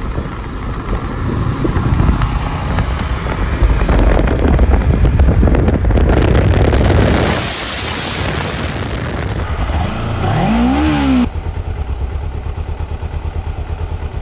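Small Kawasaki Ninja sport bike riding at road speed, its engine heard under loud road and wind rush, with a short rev rising and falling about ten seconds in. After a sudden change, the last three seconds hold an even, fast pulsing engine note.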